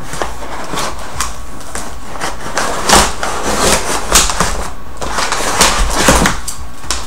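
Cardboard shipping box and its packing being handled and opened: irregular rustling and scraping with several sharper knocks, the loudest about three seconds in and again near the end.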